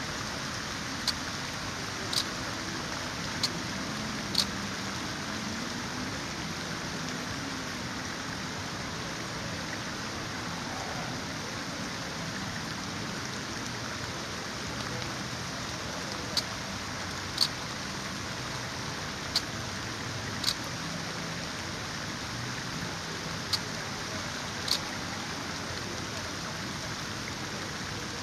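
Steady rain falling, an even hiss, with a dozen or so short, sharp high ticks at irregular intervals.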